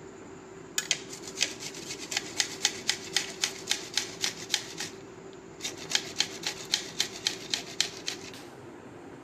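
Pineapple being grated on a flat metal hand grater: quick rasping strokes, about four or five a second, in two runs with a short pause about five seconds in. A faint steady hum sits underneath.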